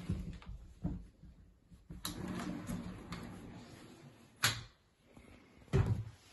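Wooden interior doors being handled: a string of knocks and clicks, with a sharp latch-like click about four and a half seconds in and a dull thud near the end.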